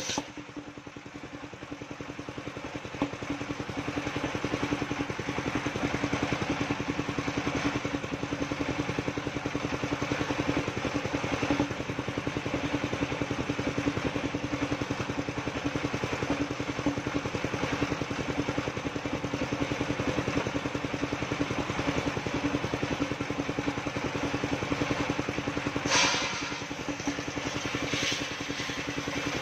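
Engine of a portable circular-saw sawmill running steadily and driving the saw blade as planks are fed across the table, with one short, sharper burst near the end.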